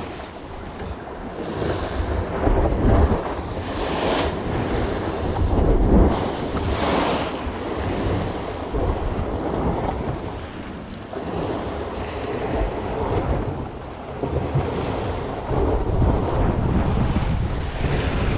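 Sea surf breaking and washing against a rocky cliff base, with wind buffeting the microphone in a heavy low rumble; the noise swells and eases every second or two.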